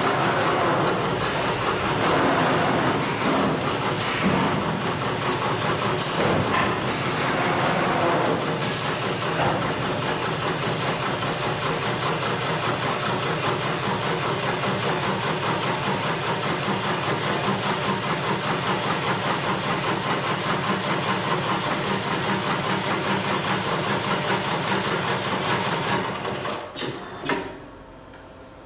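Hightex 7273PLK automatic rope bar-tacking machine running at speed, stitching a bar tack through two thick ropes with a fast, even stitching rhythm. It stops near the end, with a few short knocks as the cycle finishes.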